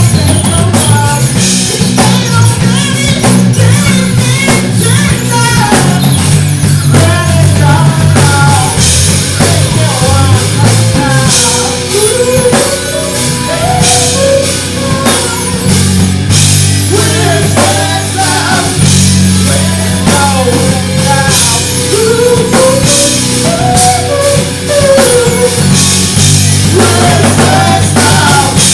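Live rock band playing loud and steady: bass and guitar over a drum kit with crashing cymbals, and a voice singing a line that bends up and down in pitch.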